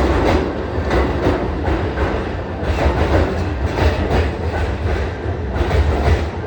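Keihan Electric Railway train running, heard from inside the carriage: a steady low rumble with the wheels clacking over rail joints, often in pairs, every second or so.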